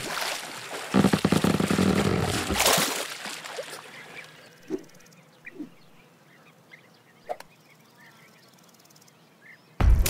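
Cartoon sound effects: a loud splashing commotion of water for about two seconds, fading into quiet outdoor ambience with a few faint scattered chirps and a click. Music comes in abruptly near the end.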